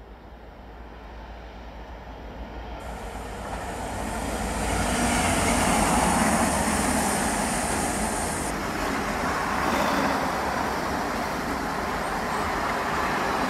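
Intermodal container freight train passing through a station, its wagons rumbling past on the rails. It builds up over the first few seconds as the train approaches, with a high hiss while the front passes, then holds at a steady loud rumble as the container wagons keep coming.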